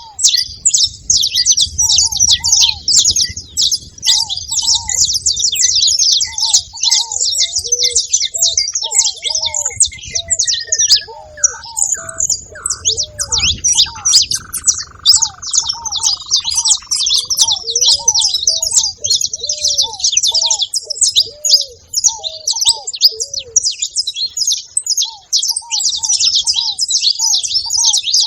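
Saffron finches chirping in a dense, continuous chorus, mixed with many short, repeated lower coos from ruddy ground doves. Around the middle, a separate call runs downward in pitch as a string of notes that ends in a short smear.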